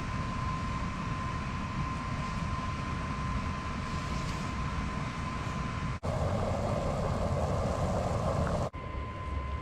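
Steady rushing whir with a thin constant whine, typical of a small battery-powered blower fan forcing air into a wood stove's fire. The sound shifts abruptly twice, about six seconds in and near the end.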